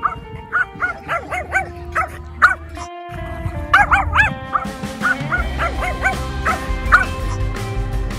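Small dogs barking in quick, high-pitched yaps, several a second, over background music.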